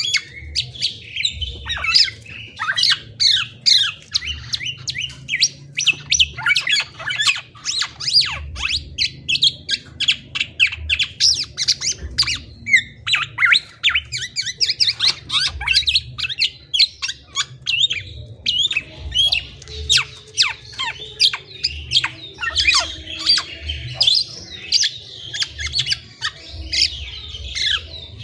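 Black-naped oriole (kepodang) singing: a long, dense run of rapid high chirps and quick falling notes, broken by short pauses, over a low rumble.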